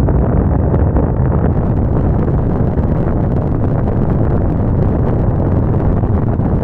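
Steady low rumble of a vehicle on the move, mixed with heavy wind buffeting on the microphone.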